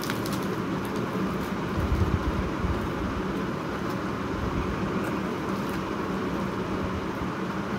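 Steady whooshing background noise, with a few soft clicks and rustles as hands tear a fried luchi on a plate. A brief low thump comes about two seconds in.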